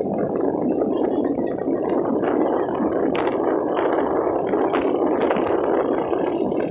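Steady rush of flowing water, with short splashy crackles now and then.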